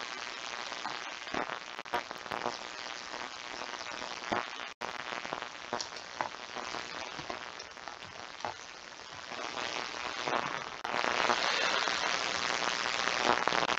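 Computer keyboard typing: irregular key clicks over a steady hiss, which gets louder about eleven seconds in.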